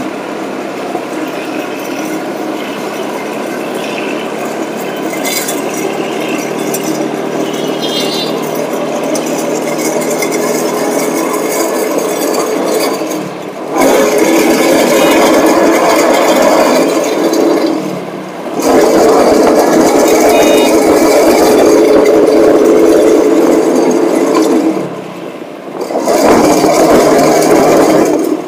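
Small auto-rickshaw engine running loud with rattling. Its noise dips briefly three times, about halfway, about two-thirds in and near the end, and comes back each time.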